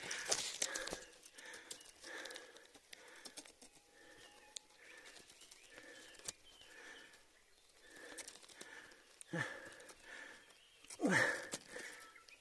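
Footsteps of a hiker walking down a mountain trail, a soft, even step about every three-quarters of a second, with two louder scuffs near the end.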